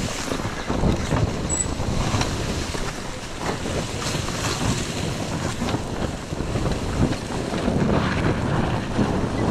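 KTM EXC 300 two-stroke enduro bike engine running under varying throttle while riding, with wind buffeting the microphone.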